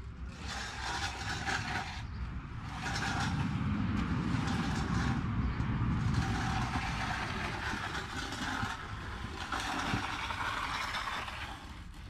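Low rumble of a passing road vehicle, swelling through the middle and fading near the end. Over it come repeated soft scraping swishes, like a long-handled bull float being pushed and pulled across wet concrete.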